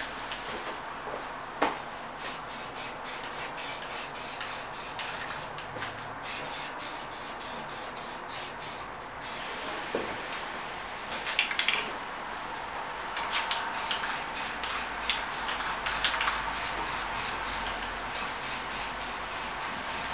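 Aerosol can of filler primer spraying onto bare metal in quick, repeated short bursts, with a few pauses between runs.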